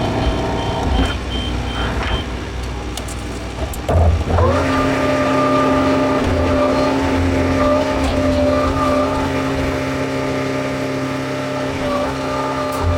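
John Deere 410 backhoe loader's diesel engine running, with a reversing alarm beeping steadily for the first two seconds. About four seconds in the engine revs up and holds at higher revs.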